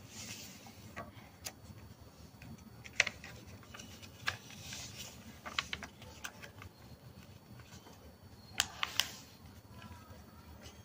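A sheet of origami paper being folded and creased by hand: soft rustling with scattered sharp crackles and taps, two of them close together near the end.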